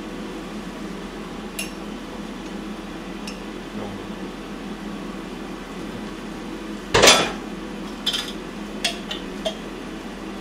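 Spoon and jar clattering as minced garlic is spooned into the ramyeon: one loud clatter about seven seconds in, then a few light clinks. A steady low hum sits underneath.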